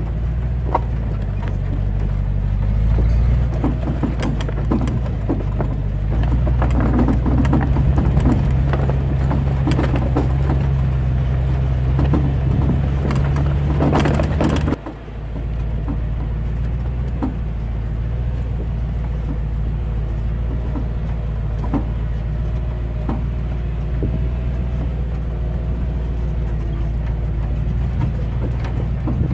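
Flatbed truck driving slowly on a rough dirt road, towing a road drag: a steady low engine drone with the bed, chain and drag rattling and knocking. About halfway through, the engine note drops suddenly and the rattling thins out.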